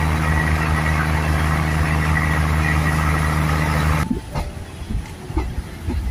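Local passenger train running, heard through an open carriage window: a steady diesel engine hum over rushing rolling noise. It cuts off abruptly about four seconds in, leaving a much quieter, uneven low rumble.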